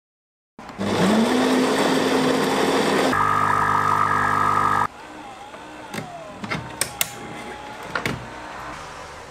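Espresso machine pump starting up with a rising whine, then running loudly with a coarse buzzing hum for about four seconds before cutting off suddenly. After that, a few light clicks as the pour ends.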